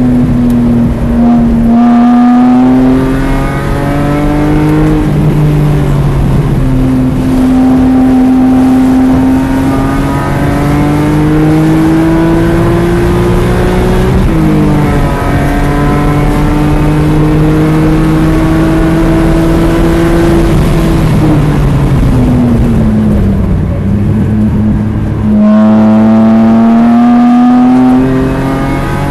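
BMW E46 M3's 3.2-litre inline-six heard from inside the cabin on track, pulling hard. Its pitch climbs steadily and drops back at each upshift, then falls as the car brakes for a corner. Near the end it comes back louder and climbs again as the throttle reopens.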